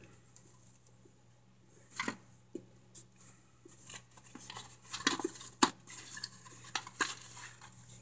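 Brittle microwaved cornstarch chunks clicking and crackling as fingers sift and break them in a foil pan. The sharp clicks are scattered, busiest in the second half.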